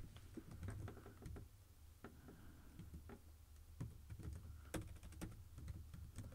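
Faint, slow, irregular keystrokes on a computer keyboard as a word is typed out letter by letter.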